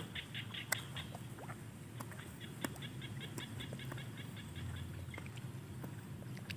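Small rice-paddy frogs (khiat) calling: fast trains of short, high notes, about five a second, with a break of about a second near the start. A few sharp clicks stand out over a low steady hum.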